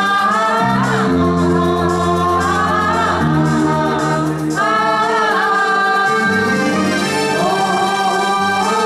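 A mixed group of young women and men singing together into microphones, holding long notes that slide from one pitch to the next.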